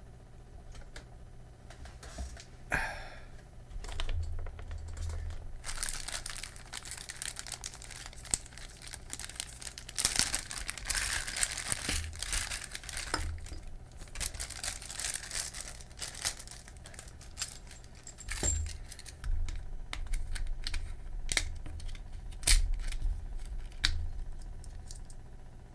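Packaging crinkling and rustling as accessories are unwrapped, with scattered clicks and knocks of small parts being handled. The rustling is heaviest from about six to sixteen seconds in; after that it is mostly separate clicks.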